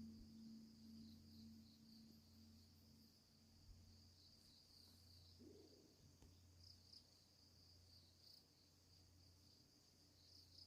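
Faint, steady chirring of crickets while the low hum of a struck Buddhist temple bell slowly dies away.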